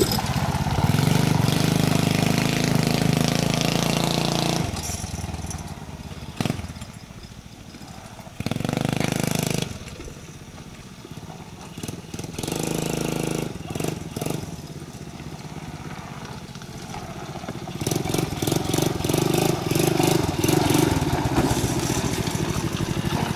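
A 110cc Loncin mini quad's single-cylinder four-stroke engine with an aftermarket TAVI exhaust, revving as the quad rides off. It fades to a distant engine with short bursts of throttle, then grows loud again near the end as the quad comes back.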